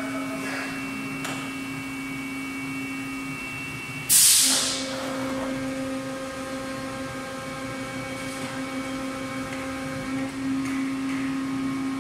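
Yawei 24-cavity PET preform injection moulding machine running with a steady hum. About four seconds in there is a sudden loud burst of hiss that fades within a second, and after it a second, higher steady tone joins the hum for several seconds.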